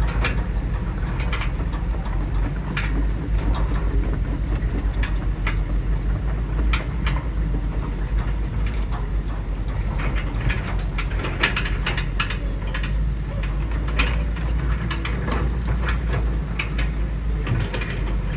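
Homemade RC hydraulic construction machines working: a steady low motor and pump hum, with frequent clicks and clattering of tracks, buckets and soil.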